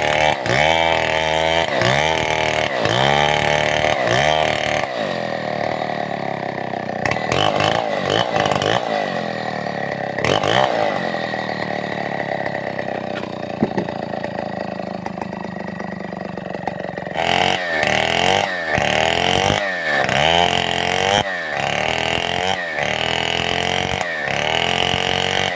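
Stihl 070 two-stroke chainsaw running hard while sawing timber into a beam. Its engine pitch dips and rises over and over, about twice a second, with a steadier stretch of several seconds in the middle.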